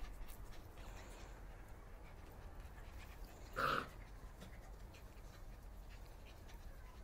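Soft Coated Wheaten Terrier puppies playing over a toy, with one short puppy yip a little past halfway through.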